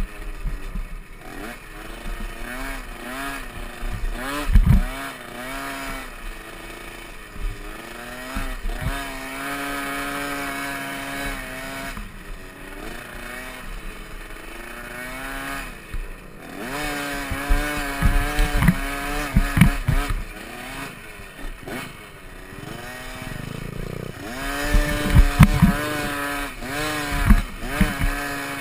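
Small youth dirt bike engine revving up and easing off again and again as the throttle is worked, over rough ground. Loud knocks and thumps come about four seconds in and in clusters near the middle and end, likely from the bike hitting bumps and rocks.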